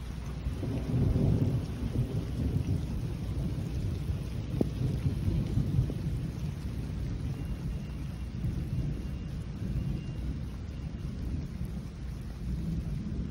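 Wind buffeting a phone's microphone outdoors, a continuous low rumble that swells and eases in gusts, loudest about a second in.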